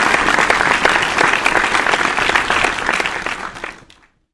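Crowd applause: a dense, even patter of many hands clapping that fades out and stops shortly before the end.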